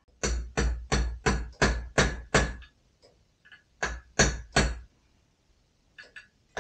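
Hammer driving a roll pin into a steel bolt: a quick run of about seven blows, a short pause, then three more, each with a brief metallic ring.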